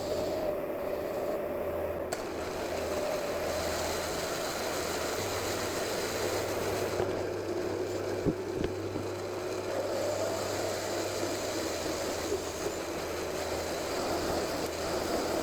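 Mini lathe running, its motor giving a steady wavering whine as a carbide tool turns aluminium stock with coolant on, with two sharp clicks about eight seconds in.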